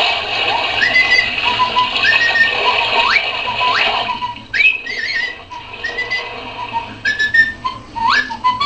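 Novelty toilet-man toy's sound chip playing a whistling effect: a string of quick upward whistle slides, each jumping up and then holding, over a steady hiss.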